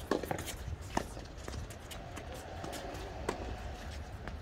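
Tennis ball being hit back and forth on a hard court: sharp pops of racket strikes and bounces, a few of them spaced about a second apart, with players' footsteps and a faint voice talking in the background.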